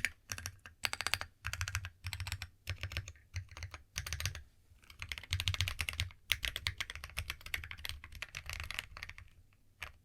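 Mechanical keyboard fitted with AKKO CS Starfish switches, typed on in fast bursts of keystrokes with short pauses, ending on one last keystroke.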